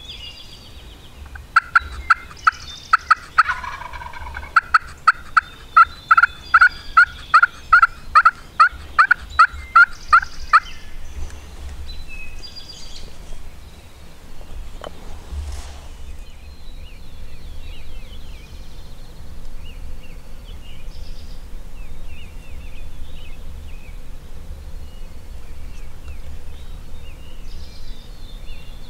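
Wild turkey calling: a fast, loud run of sharp yelps, about three a second, lasting about nine seconds. Then a single brief sharp sound about fifteen seconds in, and faint high songbird chirps.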